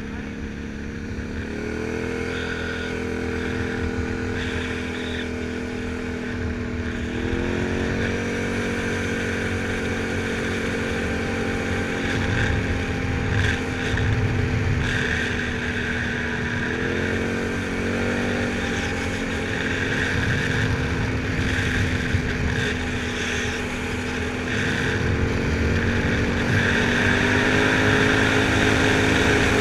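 Can-Am Outlander 1000 XT-P ATV's V-twin engine running under way, its pitch rising in steps about two, seven and seventeen seconds in and holding steady between, with wind noise on the microphone.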